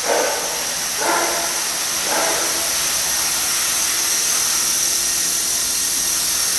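Align T-Rex 450 SE electric R/C helicopter's motor and rotor whining on the ground, with three short surges about a second apart, each a little louder, then running steadily at a high pitch.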